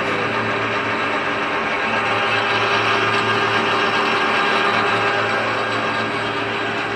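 WMW ZFTK-500 machine tool running after overhaul: a steady mechanical whir of motor and gearing with a constant low hum, swelling slightly midway.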